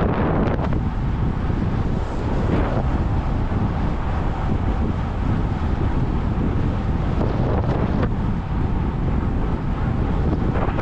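Steady rush of wind over the microphone of a camera on a racing bicycle at about 50 km/h, with a few brief louder gusts.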